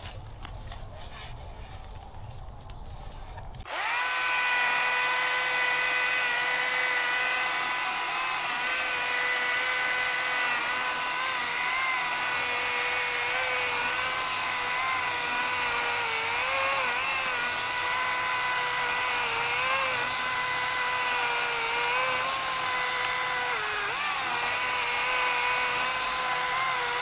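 Electric chainsaw, not gas-powered, starting up about four seconds in and running at a steady whine through a felling cut, its pitch dipping briefly now and then as it bites under load. A few clicks and handling knocks come before it.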